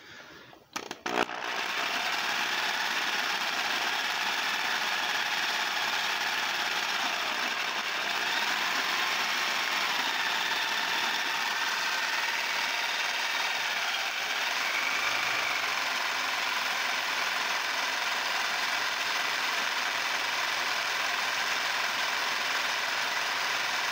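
Variable-speed electric drill running steadily at medium speed, driving a homemade paint shaker that rattles a clamped jar of metallic paint back and forth. It starts about a second in, and its pitch wavers slightly a couple of times.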